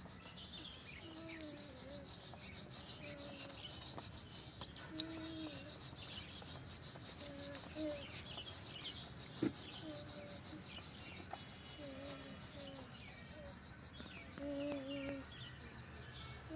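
Wooden rolling pin rolling paratha dough on a steel chakla board, a steady back-and-forth rubbing and scraping. Short low squeaks recur about once a second, and there are a couple of sharp knocks.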